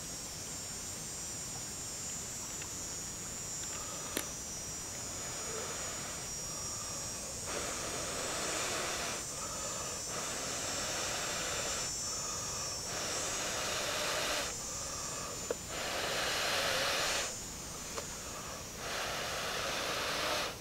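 Long, hard breaths blown into a grass tinder bundle holding a char-cloth ember struck from flint and steel, to coax it into flame. The blows come one after another from about seven seconds in, each lasting a second or two with short pauses for breath, growing stronger toward the end.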